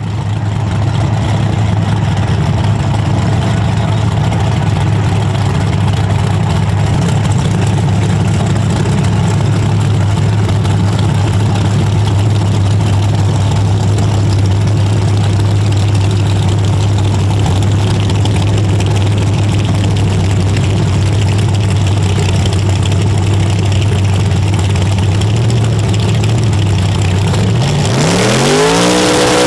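Race cars' engines running loud at the start line, a steady low drone held for a long stretch. Near the end the pitch climbs sharply as they rev up for the launch.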